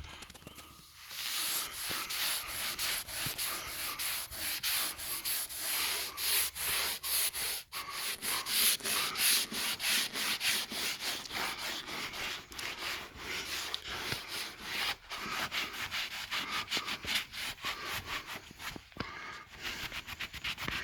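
Hand scrubbing of a failed shellac finish on old stained woodwork, in quick, rhythmic back-and-forth strokes with a dry, hissy rasp, starting about a second in: the contaminated finish is being rubbed off the wood.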